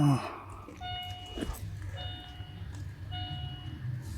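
An electronic warning chime beeping about once a second, each beep a short steady tone, over a low steady hum.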